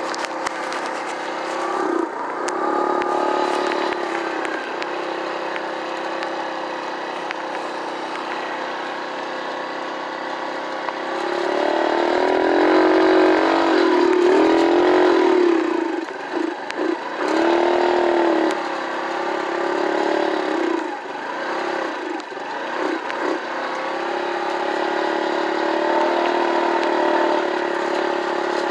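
Small engine of an Arctic Cat mini bike running under way. The engine speed rises and falls with the throttle, and the engine is loudest when revved harder about halfway through.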